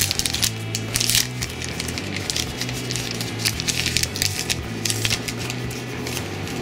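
Plastic packaging of a brush pen crinkling and crackling in short, irregular scrapes as it is handled.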